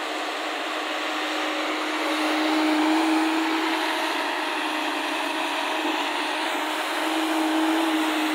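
Diesel engine and hydraulics of a JCB tracked excavator running under load as it swings and lifts its bucket over a dump truck: a steady engine hum that swells twice as the engine works harder.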